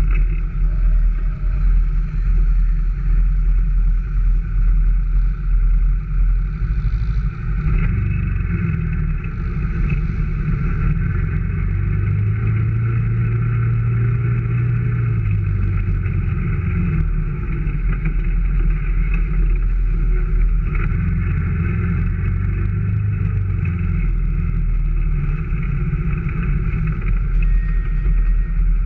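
Off-road vehicle engine running steadily while driving, with the engine note swelling for a few seconds about twelve seconds in and again around twenty-one seconds in.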